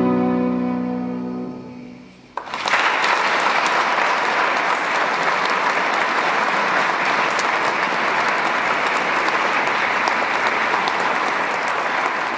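A violin and piano hold a final note that fades away over the first two seconds. About two and a half seconds in, an audience starts applauding and keeps clapping steadily.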